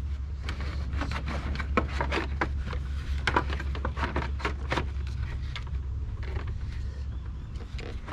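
Plastic knocks, clicks and scrapes as the BMW 330Ci's fan shroud and cooling fan are worked down into place in the engine bay: a quick irregular run of separate clacks, over a steady low rumble.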